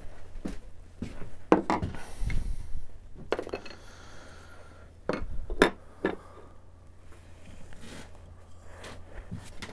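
Hand tools being picked up and set down on a workbench: several sharp knocks and clinks of tools against wood and each other, loudest about one and a half and five and a half seconds in.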